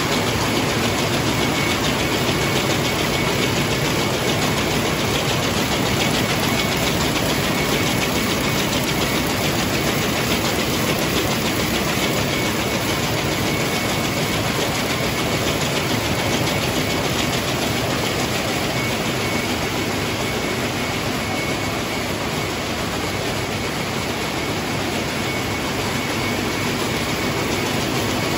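Water-jet weaving looms running: a steady, fast mechanical clatter with a faint high whine.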